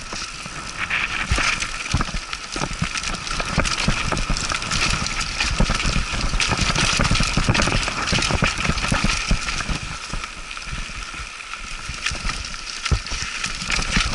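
Mountain bike riding fast down a dirt and stone trail: the tyres crunch over the ground while the bike rattles and clicks over bumps, many sharp knocks over a steady rush of noise.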